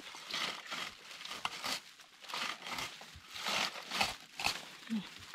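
Red plastic berry picker raking through bilberry bushes: a series of rasping swishes as its comb teeth strip berries and leaves from the twigs.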